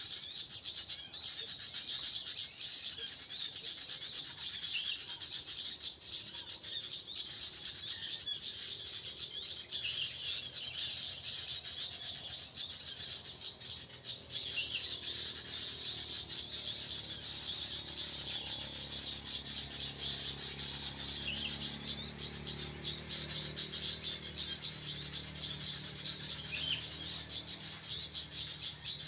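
Small birds chirping continuously in a dense, high chorus of quick repeated notes. A low hum joins in during the second half.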